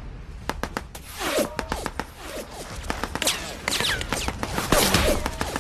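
Battle gunfire: scattered, irregular shots and impacts, with several short whining glides between them.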